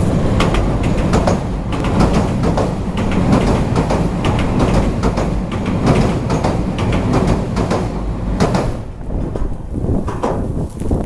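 A train crossing a railway bridge directly overhead, heard from underneath: a loud, continuous rumble with rapid clattering of wheels on the rails and bridge. It eases off about nine seconds in.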